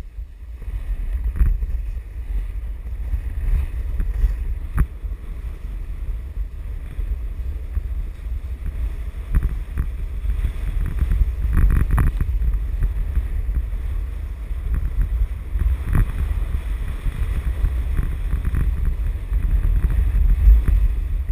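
Wind buffeting a GoPro action camera's microphone during a fast run down a groomed ski slope: a steady low rumble over the hiss of snow sliding underfoot, with a few sharp knocks.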